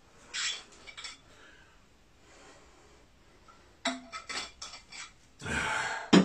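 A plastic drinks bottle being handled: scattered light clicks and knocks, a short rush of noise, then a sharp knock near the end as the bottle is set down on a table.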